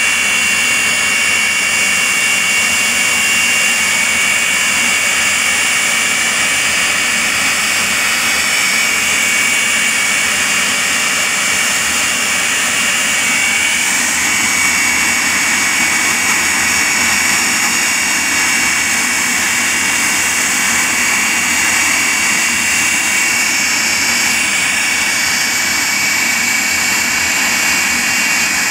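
Jet engine of the Aftershock jet fire truck running steadily: a loud rushing noise with a high, steady turbine whine, the rush growing fuller about halfway through.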